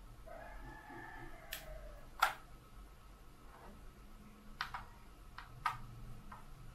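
Sharp plastic clicks, about seven scattered over a few seconds, from buttons and sticks on a Holy Stone HS650 drone's handheld remote controller being pressed.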